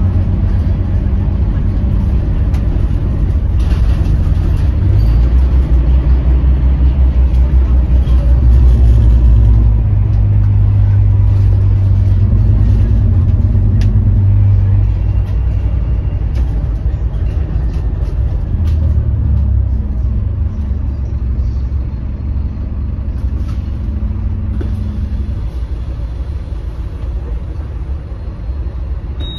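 Scania K310UB city bus's rear-mounted diesel engine running under way, heard from inside the passenger cabin as a deep drone. It builds to its loudest about a third of the way in, steps in pitch a couple of times, then eases off and grows quieter toward the end. Light interior rattles and clicks sit on top.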